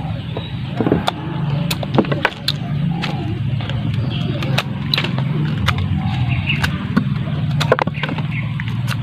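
Crisp crunching and chewing of raw coconut heart, with sharp irregular crunches every second or so, over a steady low hum.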